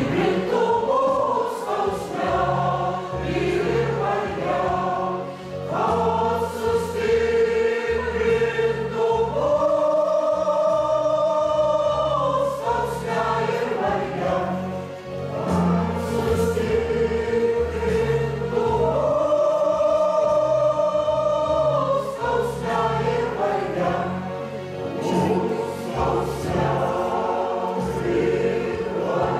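Mixed choir singing a hymn with electronic keyboard accompaniment, the voices twice holding a long sustained chord.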